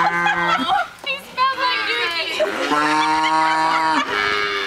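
A calf mooing several times in long, level calls, the longest lasting over a second.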